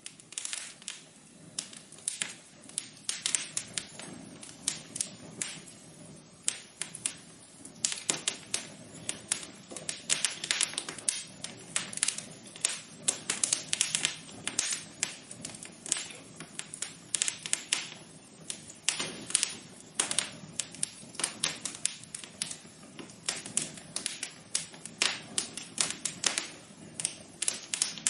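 Wood fire crackling: a dense, irregular run of sharp pops and snaps over a soft steady hiss.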